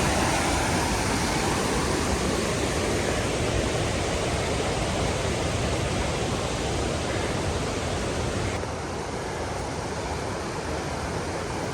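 Rushing water of rapids or a waterfall, a steady even roar that softens a little and loses some of its hiss after about eight and a half seconds.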